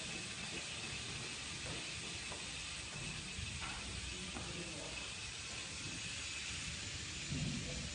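Steady background hiss and low rumble, with a few faint, soft knocks.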